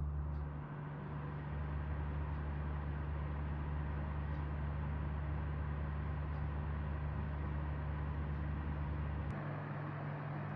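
Mitsubishi EX-202L ventilation fan running: a steady airy whoosh over a low motor hum, building up over the first second or so as it comes up to speed. About nine seconds in there is a faint click, and the lowest hum drops away while the whoosh turns slightly brighter.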